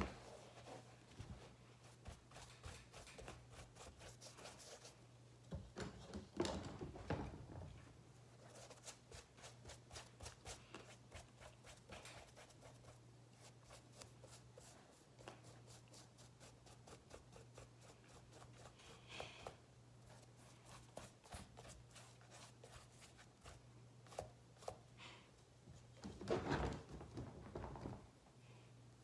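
Faint scratchy strokes and light ticks of a paintbrush dabbing paint onto a football cleat's upper, with a couple of louder handling rustles about six seconds in and near the end, over a low steady hum.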